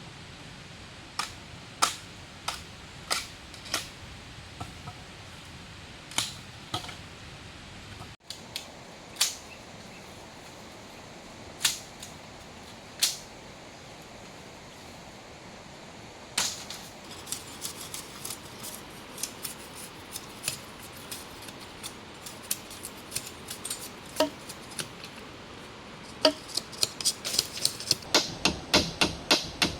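A hand tool striking wood, as in building a treehouse: scattered single knocks at first, then quick regular blows, about two or three a second, near the end, over a steady hiss.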